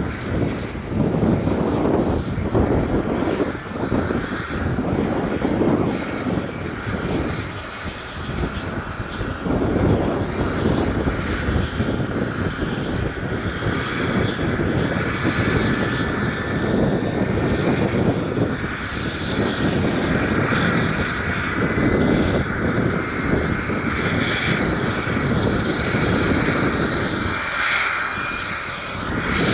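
A drone's motors and propellers running steadily in flight, a whine whose pitch slowly drifts up and down, over a fluctuating low rumble.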